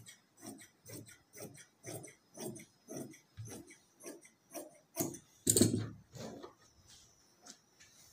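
Tailor's scissors cutting through cloth in steady snips, about two a second, trimming the selvedge off salwar fabric. A louder, longer stroke comes about five and a half seconds in.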